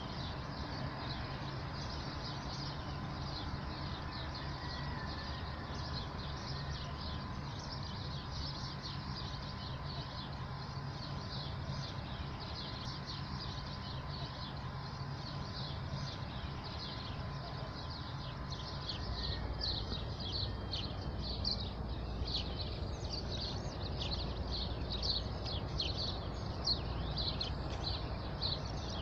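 Birds chirping: many short, quick chirps that grow busier about two-thirds of the way through, over a steady low rumble.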